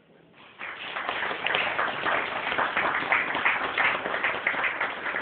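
A small audience applauding, the clapping starting within the first second.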